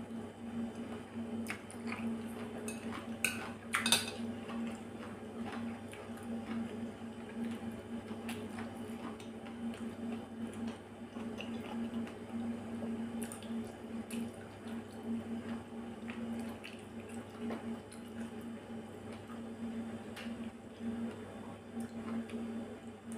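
Mukbang-style eating: metal chopsticks clicking and scraping against a ceramic bowl, with mouth sounds of chewing a saucy carrot and salmon salad. A few sharp clicks stand out about three to four seconds in, over a steady low hum.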